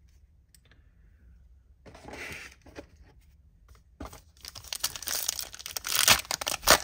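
A trading-card pack wrapper being torn open by hand, crinkling and ripping. A brief rustle comes about two seconds in, and the tearing starts in earnest about four seconds in, loudest near the end.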